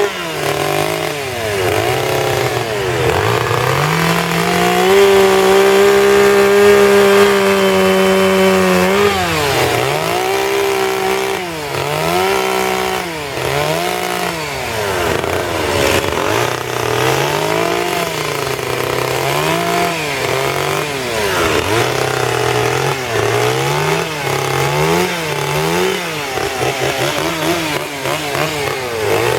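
Two-stroke chainsaw carving wood: the engine is held at high revs for several seconds, then throttled down and back up again and again, about once a second, as short cuts are made.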